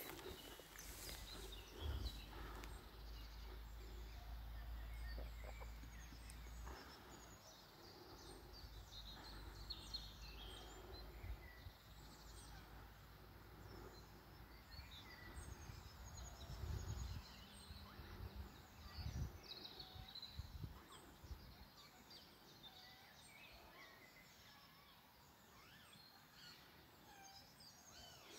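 Faint birdsong of woodland birds: scattered short chirps and calls throughout. A low rumble of wind on the microphone is strongest in the first several seconds and swells briefly twice later.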